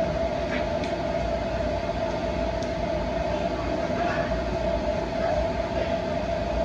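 Steady motor hum with a constant tone, like a fan or blower running, with a few faint soft rustles over it.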